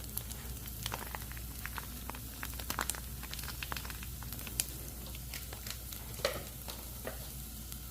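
Food frying in a pan on the stove, a steady sizzle with scattered sharp crackles and pops.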